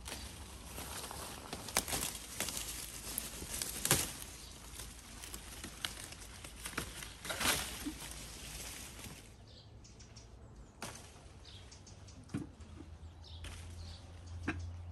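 Quince tree leaves and branches rustling as the fruit is picked by hand, with a few sharp cracks. The rustling drops away after about nine seconds.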